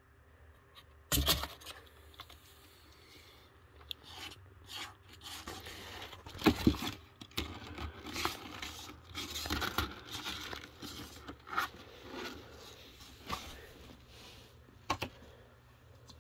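A kitten's claws scratching and scrabbling on a cardboard box as it climbs over the side: irregular scrapes and rustles, the sharpest about a second in and near the middle.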